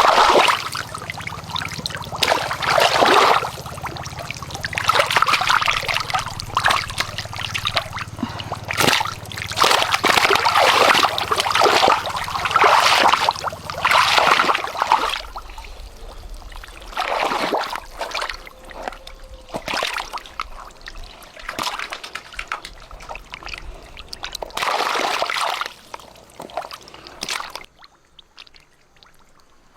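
Water splashing and sloshing in repeated surges of a second or two each, stopping about two seconds before the end.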